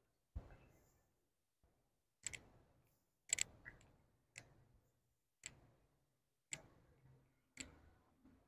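Evenly spaced sharp clicks, about one a second, each ending in a short fade, with near silence between them.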